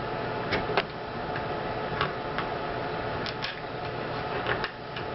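Knife point clicking and scraping against a thin aluminium drink can as a triangular hole is cut in its side: a handful of short, sharp irregular clicks over a steady hiss.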